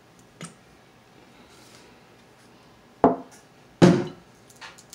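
Two loud, sharp cracks about three and four seconds in, each with a short crackle, from crab shells being broken by hand over a sheet tray. A smaller click comes about half a second in.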